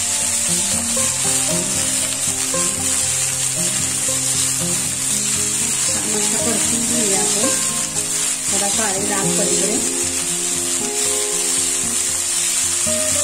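French beans sizzling in hot oil in an iron tava, a steel spatula stirring and turning them; the beans are being roasted until dark spots form.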